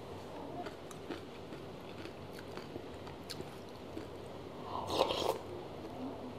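Close-up eating sounds of a person having soup with a spoon: quiet chewing and small clicks, then a short slurp about five seconds in.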